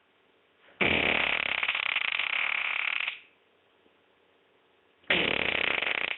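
Fart sound effect of the 'dangerous' kind, the fart that threatens to be more than wind: one long fart of about two seconds, then a second, shorter one starting about five seconds in.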